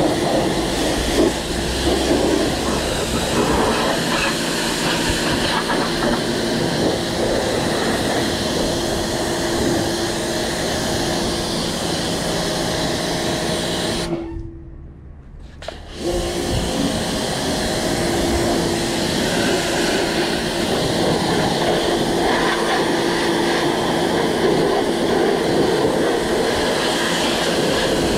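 Pressure washer running steadily, its wand spraying a jet of water against a mower's wheels and deck. The sound drops away for about two seconds about halfway through, then resumes.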